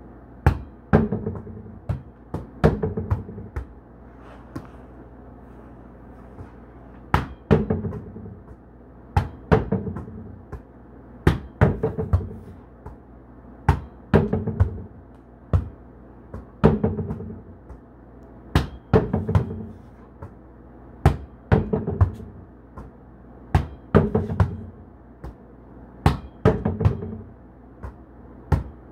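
Volleyball being spiked at a plywood target board, over and over: a sharp smack of the hand on the ball, then the ball thudding off the plywood and bouncing back. The cycle repeats about a dozen times, roughly every two seconds.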